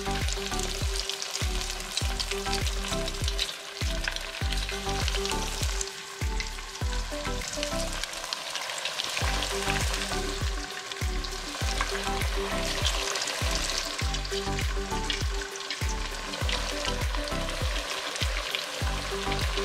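Coconut-crusted kingfish pieces deep-frying in vegetable oil, a steady sizzle and crackle throughout. The oil is too hot, browning the crust very quickly.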